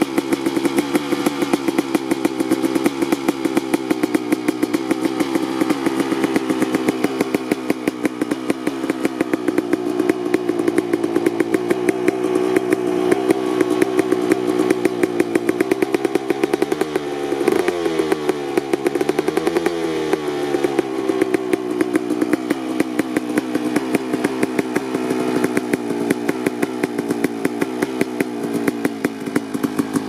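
2003 Kawasaki KX250 single-cylinder two-stroke engine idling as it warms up from a cold start, with a fast popping exhaust note. A bit past halfway it is revved briefly twice, rising and falling in pitch each time, before settling back to idle.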